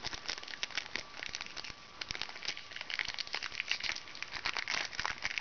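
Foil wrapper of a Japanese Pokémon Fossil booster pack crinkling and crackling in the hands as they work at a stubborn pack to get it open, with rapid irregular crinkles throughout.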